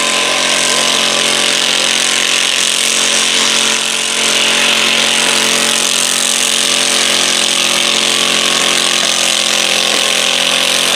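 Stock garden tractor engine running flat out under heavy load as it drags a pulling sled, holding a steady note with a brief dip about four seconds in.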